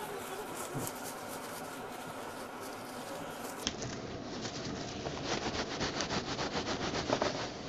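Crosnes (Chinese artichoke tubers) and coarse salt rubbed hard inside a cloth kitchen towel: a steady scratchy rubbing that turns, about five seconds in, into quick rhythmic strokes, several a second. The salt is scrubbing the small tubers clean of skin and impurities.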